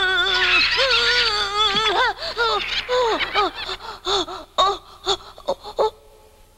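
Cartoon lamb's high young voice giving strained, wavering cries and gasps of effort, a struggle with a snake. The cries grow shorter and choppier after about two seconds, with a few sharp knocks and quieter breaths near the end.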